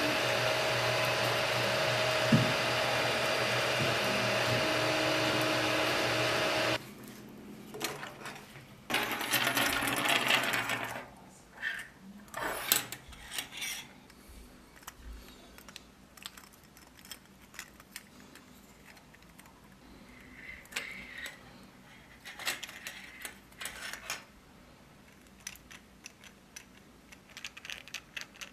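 A 3D printer running, a steady mechanical whir with faint tones, which cuts off about seven seconds in. Then come light plastic clicks and rattles as the jointed segments of a printed flexi hammerhead shark are moved by hand.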